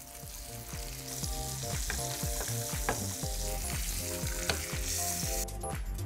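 Tuna steaks frying in butter in a pan, a steady sizzle, over background music with a beat. The sizzle cuts off about five and a half seconds in.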